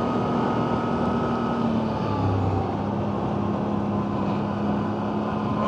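CFMoto CForce 1000 ATV's V-twin engine running under way on a trail, its note dropping slightly about two seconds in and then holding steady.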